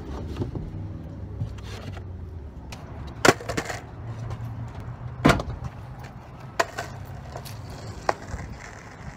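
Skateboard on asphalt: a low rolling rumble under the first few seconds, then about four sharp wooden clacks a second or two apart as the board hits the pavement and the rider steps onto it.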